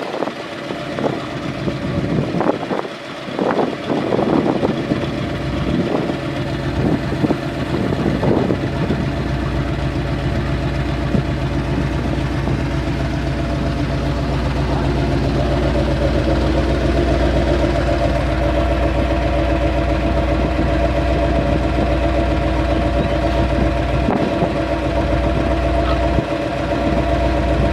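An engine idling steadily, with a few knocks and clatters during the first several seconds.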